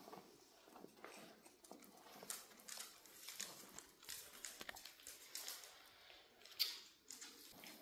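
Miniature dachshund puppies scampering and tussling over a rope toy: faint scattered paw clicks and scuffles on the floor and rug, with one sharper knock about six and a half seconds in.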